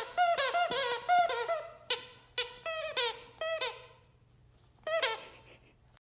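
Squeaky plush dog toy squeaked over and over as a dog chews it: a quick run of short, high squeaks with wavering pitch, a pause, then one last squeak about five seconds in.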